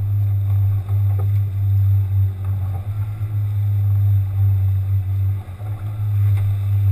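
Small outboard motor on a fishing boat running steadily: a constant low drone.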